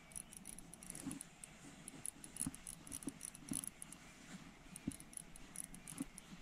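Daiwa Airity 1000D spinning reel being cranked to retrieve an ultralight lure: a faint, irregular metallic ticking, with a few soft knocks from handling the rod.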